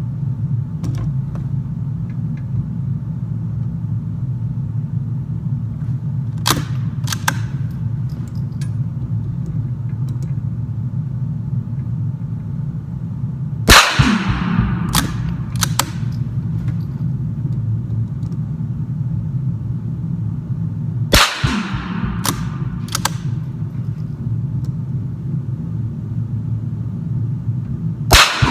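Single-shot .22 LR bolt-action rifle firing three shots about seven seconds apart in an indoor range, each sharp crack followed by a short echo. Lighter metallic clicks of the bolt being worked come a second or two after the first two shots, over a steady low hum.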